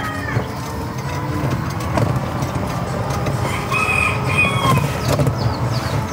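A rooster crowing once, about four seconds in, over the steady low rumble of a tricycle ride along the street.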